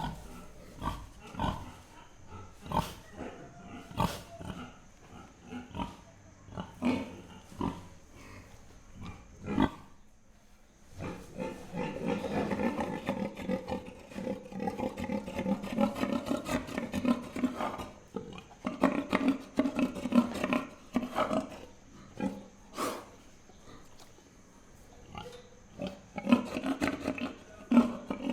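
Pigs grunting: short separate grunts for the first ten seconds, then a denser run of continuous grunting from about eleven seconds in, with another burst near the end.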